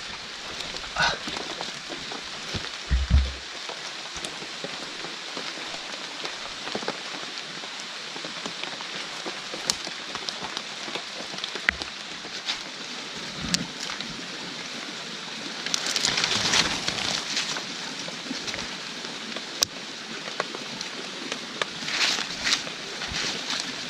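Steady rain falling on the forest around, with scattered sharp drop ticks and a few louder stretches about two-thirds of the way in and near the end.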